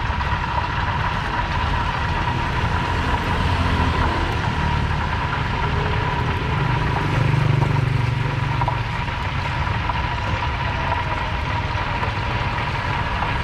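Street traffic: a steady low rumble of engines that swells as a vehicle passes about seven seconds in, with a faint steady high tone running underneath.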